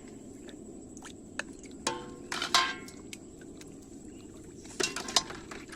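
Water splashing and sloshing in two short spells, about two seconds in and again near the end, over a steady background hiss.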